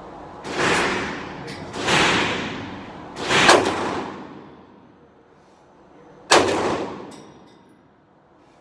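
Four 9mm pistol shots from a Glock 34 Gen 5 MOS, each trailing off in a long echo off the range's walls. The first three come about a second and a half apart, and the last follows after a gap of about three seconds.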